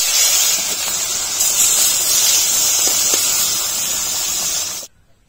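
Marinated kawai (climbing perch) fish sizzling loudly as they fry in hot mustard oil in an iron kadhai, a steady hiss that stops abruptly near the end.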